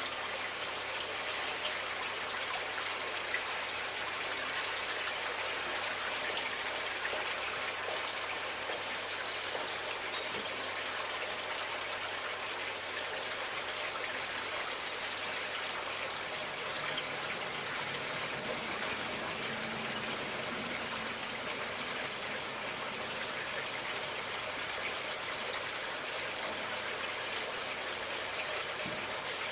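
Nature ambience: a steady hiss of running water with bird chirps, a cluster about nine to eleven seconds in and another near twenty-five seconds.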